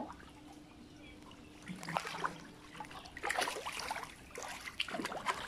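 Hands splashing and sloshing in shallow, muddy water while groping for fish around a net trap, in three short bursts: about two seconds in, three and a half seconds in, and near the end.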